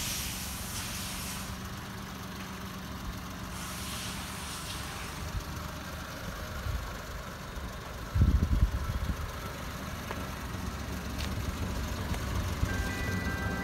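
1993 Mitsubishi Minicab Bravo's small three-cylinder engine idling with a steady low hum. A sudden, louder low rumble comes about eight seconds in, and music begins near the end.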